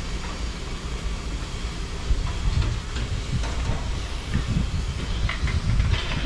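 Steam locomotive standing in the yard: a steady hiss of steam over a low, uneven rumble, with a few short knocks and clanks scattered through.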